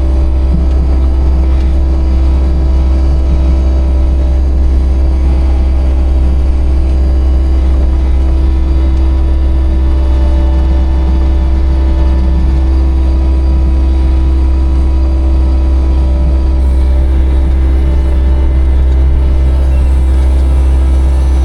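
Manitou skid loader's engine running steadily under load, a loud constant drone.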